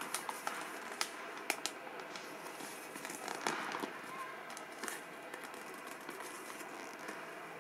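A glossy paper brochure being handled and unfolded, crinkling and rustling with scattered sharp crackles.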